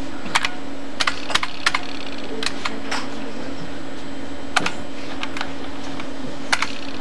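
Computer keyboard keys pressed one at a time as letters are typed into a misspelled word: a dozen or so scattered clicks at irregular intervals, over a steady low hum.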